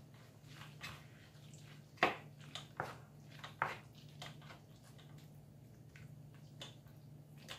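Pasta being moved into a pan of thick cream sauce with a utensil: soft wet squelches and light clicks against the pan, the loudest about two seconds in, over a steady low hum.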